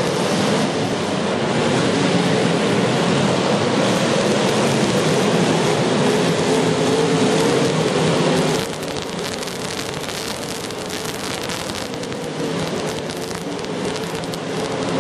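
Demolition derby cars' engines running and revving, a loud, dense racket with a wavering engine note. About nine seconds in it drops a little and turns crackly, with many sharp clicks.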